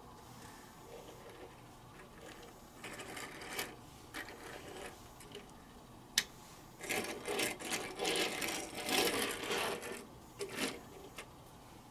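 Small plastic building-block forklift handled on a wooden table: light clicks and taps of plastic parts, one sharp click about six seconds in, then about three seconds of dense rattling as its plastic wheels roll over the wood, with a few more clicks near the end.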